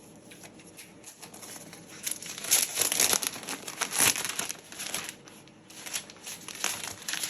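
Packaging wrap crinkling and rustling as a new keyboard is unwrapped: quiet handling at first, then bouts of crackly crinkling from about two seconds in, easing off briefly past the middle and picking up again near the end.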